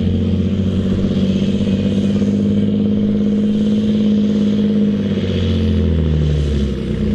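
Straight-piped John Deere 8530's six-cylinder diesel running hard under full load on a tractor pull, holding a steady pitch, then sagging in pitch and dipping briefly near the end.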